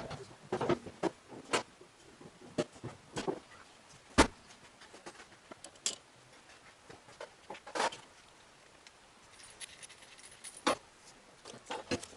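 Irregular metallic clinks and knocks of hand tools and metal parts being handled while bolting parts onto an engine, the sharpest knock about four seconds in.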